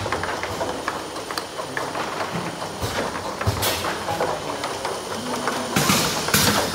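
Bottle filling and heat-sealing line running: its slat-chain conveyor rattles steadily while plastic bottles click and knock against each other and the guide rails, with a few sharper knocks in the second half.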